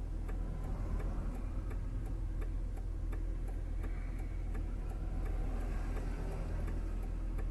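Turn-signal flasher ticking steadily, a few clicks a second, inside a pickup truck's cab, over the low steady rumble of the engine and road.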